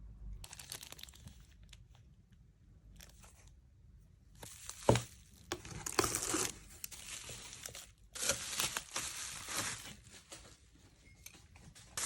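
Packaging being crinkled and torn open by hand in two spells of crackling, with one sharp knock about five seconds in.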